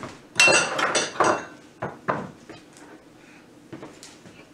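Dishes and utensils clattering as they are moved about and set down in a kitchen. A busy run of knocks comes in the first second or so, then a few single knocks.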